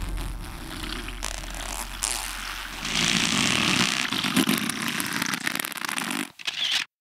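A toilet being flushed: a rush of water that gets louder about three seconds in and cuts off suddenly near the end.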